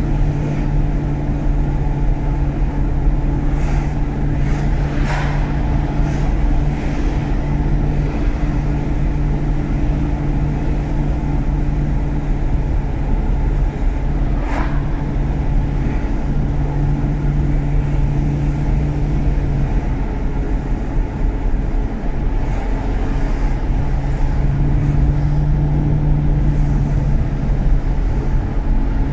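BMW E39 535i's V8 engine and road noise while driving, a steady low drone at an even pitch, with a few faint knocks.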